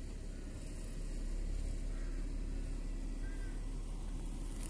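LiAZ 5292 low-floor city bus running steadily as it pulls forward to the stop for boarding, heard as an even low rumble.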